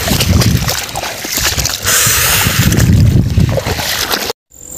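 Wind buffeting the microphone with a loud, irregular low rumble, and a stretch of hissing rustle in the middle. It cuts off suddenly near the end.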